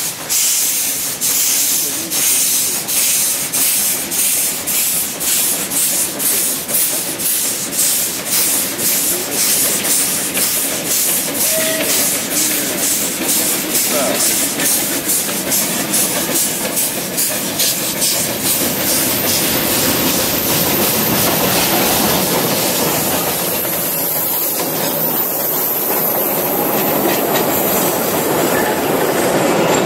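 Narrow-gauge steam locomotive getting under way with a train of open wagons: sharp exhaust chuffs with hissing steam, the beats quickening as it picks up speed. In the last third the beats fade into the steady rolling rumble and wheel clatter of the wagons passing close by, with a thin high squeal from the wheels.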